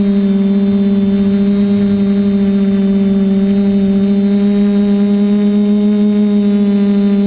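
TBS Discovery clone quadcopter's brushless motors and propellers humming at a steady pitch, heard loud and close through the GoPro mounted on its frame, with a fainter high motor whine above.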